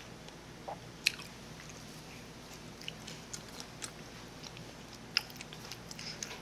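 A person chewing food, with a handful of sharp clicks of a metal fork against a plastic bowl as she picks up more.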